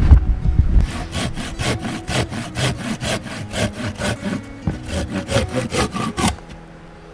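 Curved-blade hand saw cutting a log on a sawhorse, in quick even strokes of about four a second that stop abruptly near the end. A low rumble fills the first second.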